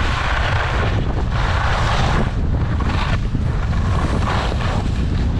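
Wind rumbling on the camera microphone at skiing speed, with skis hissing and scraping over the snow in surges about once a second.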